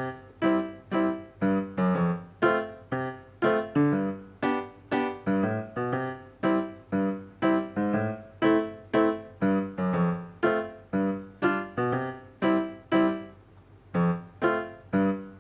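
Background piano music: a steady run of plucky struck notes, about three a second, each fading quickly, with a short pause about 14 seconds in.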